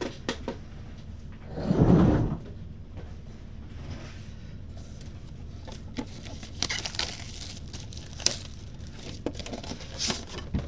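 Cardboard Panini Immaculate Football hobby boxes handled and opened by gloved hands: a dull thud about two seconds in, then scattered clicks and scraping as the box lid is worked open.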